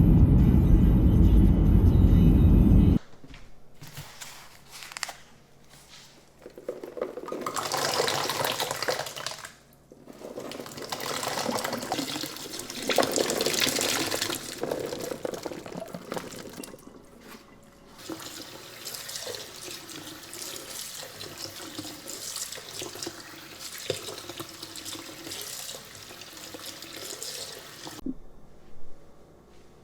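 A loud low rumble cuts off abruptly about three seconds in. Then tap water runs into a sink in uneven spells, splashing and swishing.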